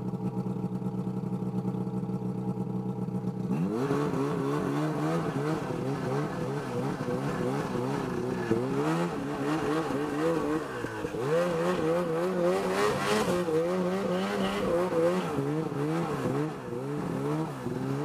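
Ski-Doo Summit X snowmobile's 800 cc two-stroke engine, running at a steady low speed, then about three and a half seconds in the throttle opens and the revs rise sharply and keep swinging up and down as the sled climbs a snowy trail.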